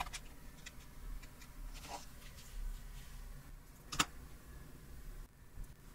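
Quiet handling sounds as a rusty staple is worked free of a paper booklet's spine: faint ticks and paper rustle, with one sharp click about four seconds in.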